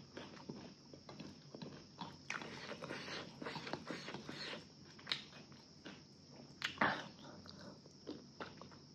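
Close-up eating sounds of a person chewing rice and chicken curry: irregular wet smacks and small clicks of the mouth, with a louder smack about seven seconds in.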